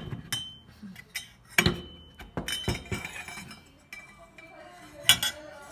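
A polished stainless steel grab bar handled on a tabletop: a string of sharp metal clinks and knocks, some with a brief ring, the loudest near the end.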